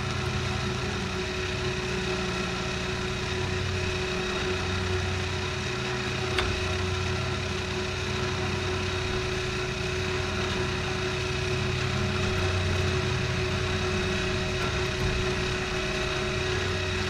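A motor running steadily at an even speed, a constant tone over a low pulsing rumble, as the antenna tower is let down on its cable.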